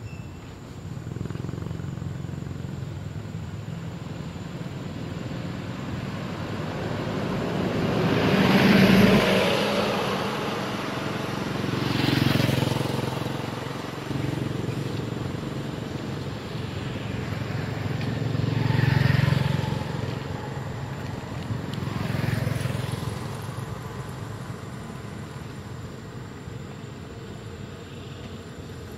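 Motor vehicles passing on a nearby road: a steady engine hum that swells and fades four times as vehicles go by, loudest about nine seconds in.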